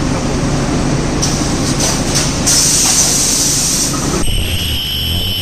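Automatic bitumen bag-filling and packaging line running with a steady mechanical din. Air hisses from its pneumatic actuators come twice, the second time for more than a second. Near the end, a steady high whine sets in over a low hum.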